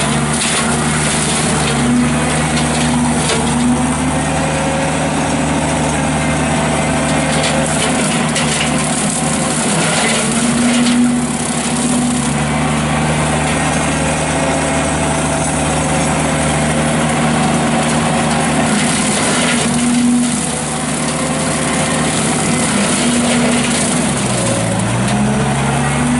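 Ditch Witch SK755 mini skid steer running at steady throttle, driving a CID 42-inch brush cutter through saplings, with scattered cracks and knocks. The engine pitch sags briefly a few times under load, dipping deepest near the end before it recovers.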